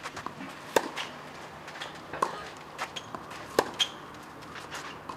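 Tennis rally on a clay court: three sharp racket-on-ball strikes about a second and a half apart, with fainter ball taps between them.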